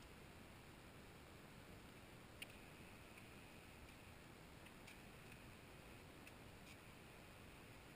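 Near silence: faint room hiss with a few soft ticks.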